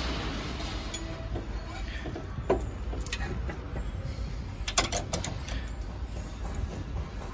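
Long-handled socket ratchet worked on a suspension bolt, giving scattered clicks and a quick cluster of ticks about five seconds in, over a steady low hum.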